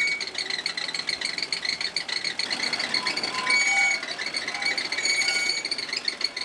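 Noodle dough-sheeting machine running, with a steady high whine and shorter tones coming and going.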